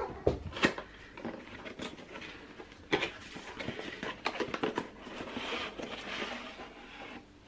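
Rustling and light clicks and knocks of a box of champagne glasses being handled and opened, with a longer rustle of packaging near the end.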